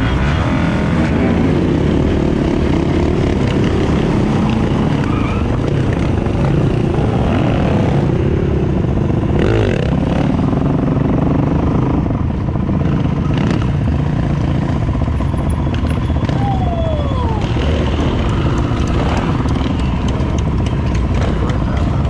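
Dirt bike engines running and revving while riding on the road, heard from on board the camera rider's bike, with engine pitch rising and falling as the throttle changes.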